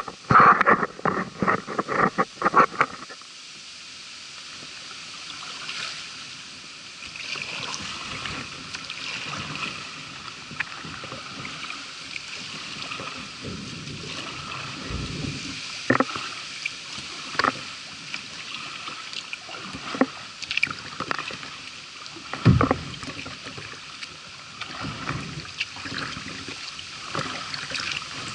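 Kayak paddled through floodwater: paddle strokes splashing and dripping, with scattered sharp knocks. A loud, fast rhythmic sound fills the first three seconds before the water sounds take over.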